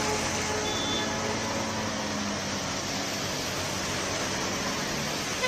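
Steady hiss of heavy rain and traffic on a waterlogged city street, with faint brief tones in the background.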